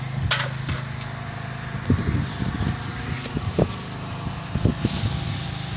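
A steady low mechanical hum, like an engine running, with scattered light knocks and bumps over it, in a cluster in the middle and again near the end.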